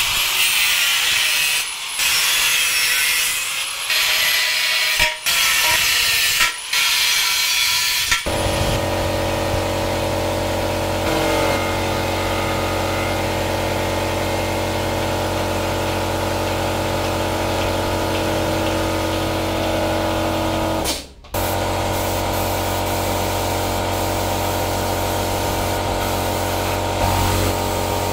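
A high hissing noise with several short breaks, then, about eight seconds in, a steady machine hum that runs on, cutting out briefly once.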